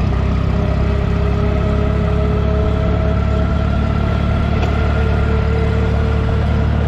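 Minneapolis-Moline U302 Super tractor's gasoline engine running steadily at road speed under the driver, a loud even drone with a thin steady whine above it.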